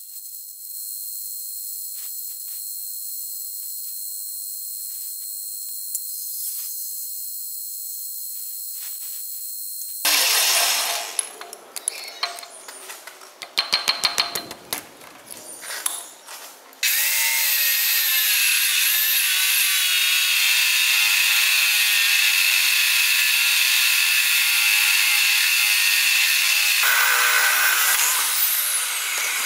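Metal lathe drilling a round steel bar with a twist drill: a steady high hiss. Then several seconds of loud, irregular knocks and clatter. Then a Bosch abrasive cut-off saw cutting steel: a loud, steady grinding whine that changes near the end as the cut finishes.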